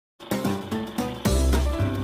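Intro music with a strong bass line, starting about a fifth of a second in.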